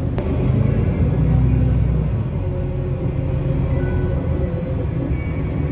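Cabin rumble of an Otokar Kent C-12 city bus under way, its diesel engine and running gear heard from a rear seat, swelling over the first two seconds. A single sharp click just after the start.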